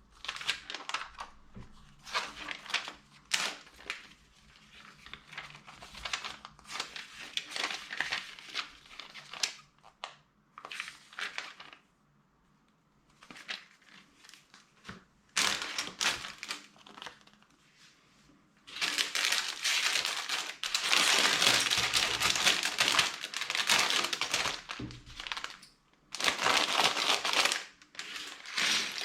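Plastic LEGO parts bags and packaging crinkling and rustling as they are handled during unboxing, in short bursts with a brief lull near the middle, then a long, louder stretch of continuous crinkling about two-thirds of the way through.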